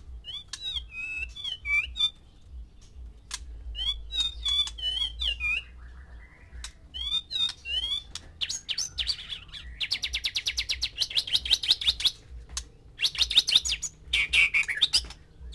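White-rumped shama singing: short, varied whistled phrases that glide up and down, then about halfway through long, fast rattling chatters.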